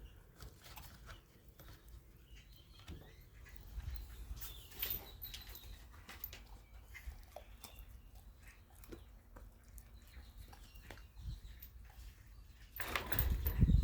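A dog chewing chicken bones, with faint scattered cracks and clicks. A louder stretch of low rumbling noise begins near the end.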